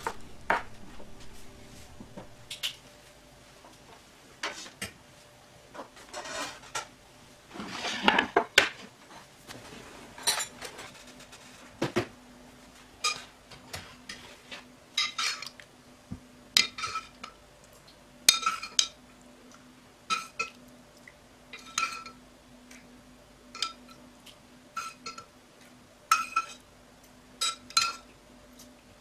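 Kitchenware handled while a meal is plated: scattered knocks and a brief scrape, then a run of light metal-on-ceramic clinks about once a second. A faint steady hum sits underneath.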